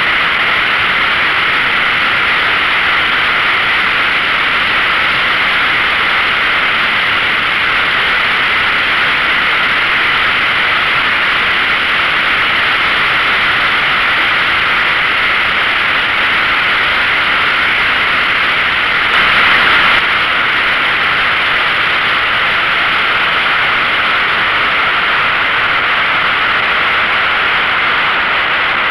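Yamaha XVS 1300 Midnight Star motorcycle riding at steady speed: an even, rushing wind-and-road hiss on the onboard microphone, with the engine running underneath it. The hiss swells briefly about twenty seconds in.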